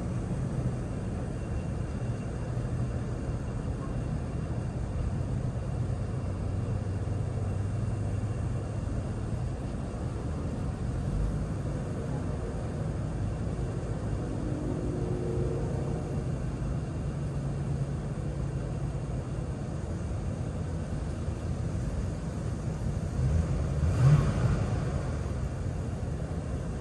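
1974 GMC Vandura van's engine idling with a steady low rumble, with one brief louder swell near the end.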